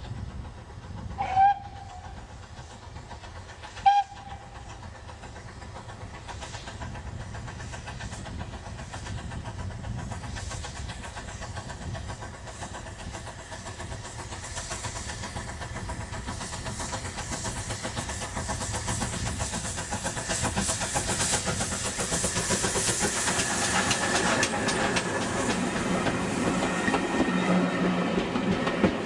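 Steam locomotive gives two short whistle toots, the first about a second and a half in and a very short second one a couple of seconds later. The train then draws nearer, its running noise growing steadily louder until the coaches roll past close by near the end, with the clickety-clack of wheels on rail joints.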